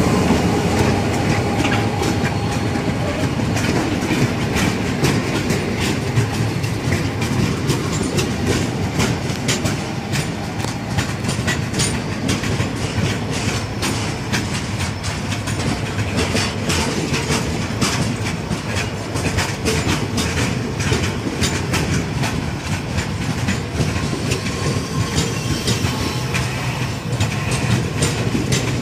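Loaded open freight wagons of a heavy chrome ore train rolling past, steel wheels clattering over the rail joints in a steady run of clicks and knocks over a low rumble.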